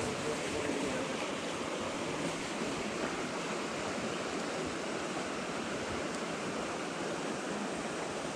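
Steady rushing of creek water running over a shallow riffle.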